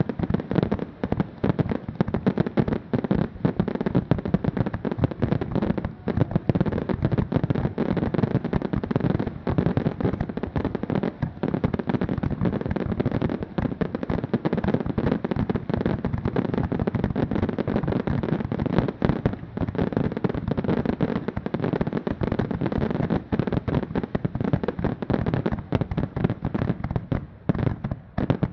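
Fireworks display barrage: a dense, continuous rapid-fire of bangs and crackles with no let-up, thinning slightly near the end.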